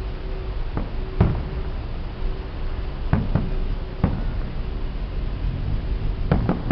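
Fireworks bursting: about seven sharp bangs at irregular intervals, some in quick pairs, over a steady low rumble.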